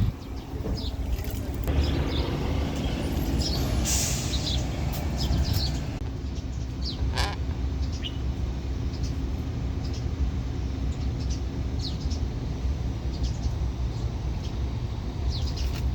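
Caged parrots giving short high chirps over a steady low engine rumble, with a brief hiss about four seconds in.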